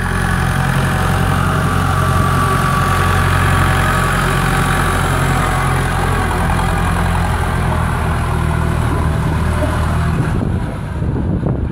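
Massey Ferguson 168 tractor's four-cylinder Perkins diesel engine running at a steady speed as it drives past pulling a loaded feed wagon, dropping away about ten seconds in as it goes into the barn.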